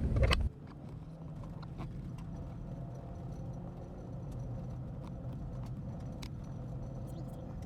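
A loud low rumble cuts off abruptly about half a second in. Then a quieter low steady hum remains, with scattered light clicks and taps at irregular intervals.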